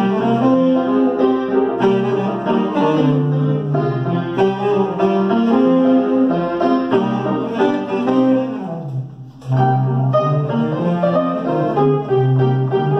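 Saxophone and upright piano playing a tune together over minor seventh chords (Cm7 and Fm7). The playing drops away briefly about nine seconds in, then comes back in with low piano chords.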